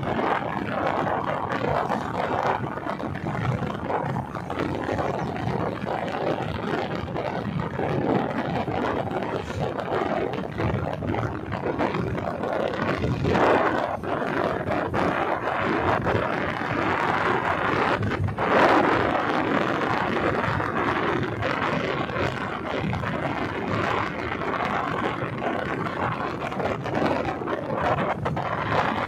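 Wind rushing over the microphone of a moving motorcycle, mixed with the motorcycle's running noise and tyre noise, with a couple of louder gusts.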